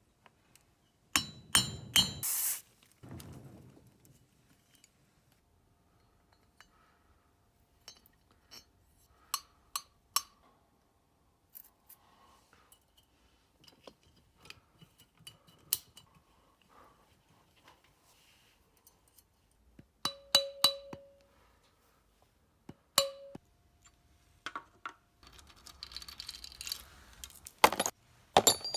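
Scattered metal clinks and clanks of tools and small parts being handled, with louder clattering about a second in, around twenty seconds in, and near the end.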